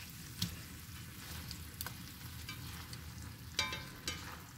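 Beef steaks sizzling gently in oil in a stainless steel pan over low induction heat, a steady faint hiss. A few sharp clicks of tongs against the pan are heard as the steaks are turned, one of them ringing briefly near the end.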